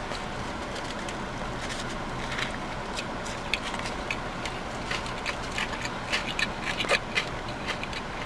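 Close-up chewing and wet mouth clicks from eating a black bean veggie burger, coming thicker in the second half, over a steady low hum.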